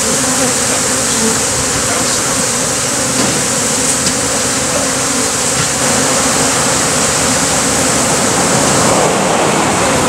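Loud, steady buzzing of a mass of honey bees in flight close around, a colony being driven from its nest cavity with bee repellent.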